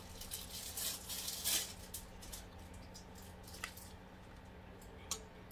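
Quiet eating sounds at a table: soft scattered clicks and taps, the loudest about a second and a half in, over a faint steady low hum.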